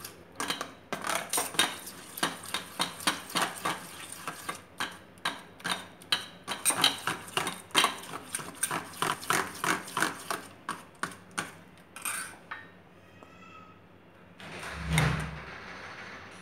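A metal spoon beating thick malpua batter of flour, milk and mawa in a stainless steel bowl, clinking against the bowl about three times a second as the batter is beaten smooth and free of lumps. The beating stops about twelve seconds in, and a single louder, duller thump follows a few seconds later.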